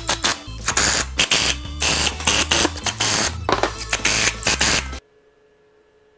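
Background music with a steady bass line, over irregular short bursts of a power driver driving screws into timber. Everything cuts off suddenly about five seconds in, leaving quiet room tone.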